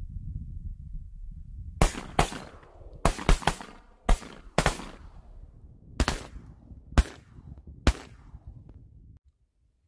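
A volley of shotgun fire from several duck hunters shooting at flying ducks: about ten sharp shots, some in quick succession, between about two and eight seconds in, over a low rumble that stops near the end.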